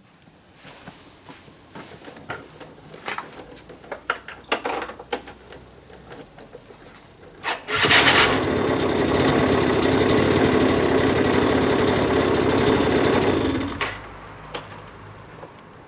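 Yamaha JOG Aprio (4JP) scooter's electric starter run for about six seconds with a loud steady grinding whir, the abnormal starter noise that points to a faulty one-way starter clutch. A few light clicks come before it, and a quieter steady hum follows once it stops.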